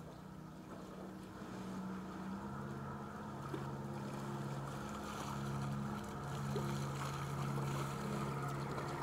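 A river motor cruiser's engine running with a steady low hum as the boat goes by, getting a little louder over the seconds.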